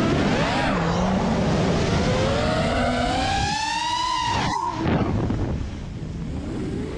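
FPV racing quadcopter's motors whining, the pitch gliding up and down with the throttle: a long rising climb that drops sharply about four and a half seconds in, then a quieter, lower whine.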